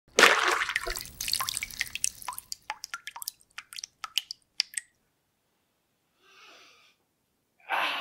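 A splash of liquid, then dripping that thins out to scattered single drops over the next few seconds. Near the end a man begins a long yawn.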